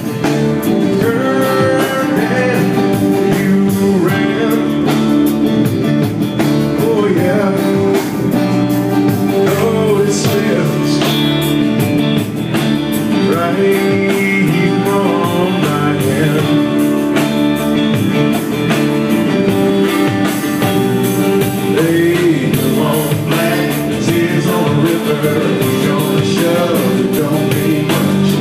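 Live band playing a blues-rock song: a male lead vocal sung over a strummed acoustic guitar and an electric guitar.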